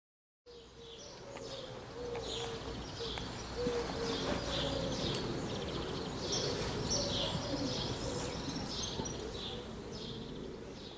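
Birds chirping and singing, with a pigeon cooing low in repeated short phrases, over a steady low background rumble. It starts suddenly about half a second in.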